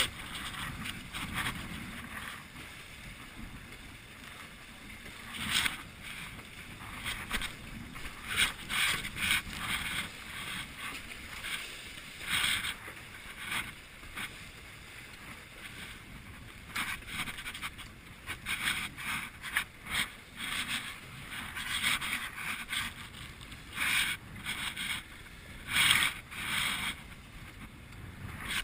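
Wooden GP14 sailing dinghy beating through choppy water: irregular splashes and slaps of waves and spray against the hull over a steady rush of water and wind.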